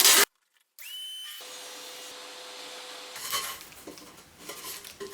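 Masking tape ripped briefly at the start. After a short break comes a steady hiss with a high whine that rises and then holds. Scraping and rubbing of wood follows.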